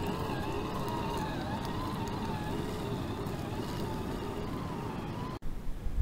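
Whine of a Vanquish VS-410 Phoenix RC rock crawler's electric motor and drivetrain as it crawls, the pitch wavering up and down with throttle and load over a low rumble. A little over five seconds in it cuts off abruptly and gives way to a louder low rumble.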